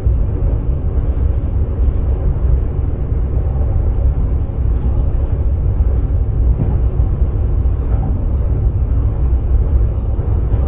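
Sprinter train running along the line, heard from inside the driver's cab: a steady low rumble of wheels on rails.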